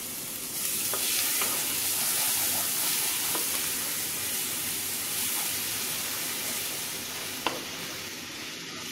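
Minced garlic and cumin seeds sizzling in hot oil in a frying pan as a tadka, stirred with a wooden spatula. The steady sizzle swells about half a second in and eases slightly toward the end, with a few faint clicks along the way.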